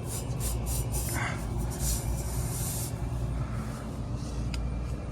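Steady low hum of rooftop HVAC machinery running, with a run of short, high hissing noises in the first three seconds.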